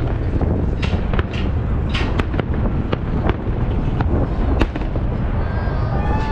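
Fireworks salute going off: sharp bangs and pops of bursting shells at uneven intervals, about ten in all, over a steady low rumble.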